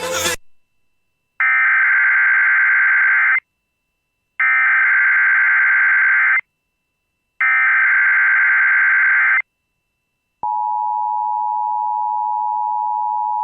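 Emergency Alert System header: three identical data bursts of about two seconds each, a second apart, then about ten seconds in the steady two-tone EAS attention signal begins. This sequence announces an incoming emergency alert.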